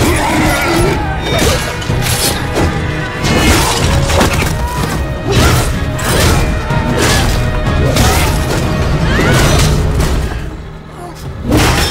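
Action-film fight soundtrack: dramatic music with a heavy low beat under a rapid series of clashing hits and blows. A loud hit comes near the end.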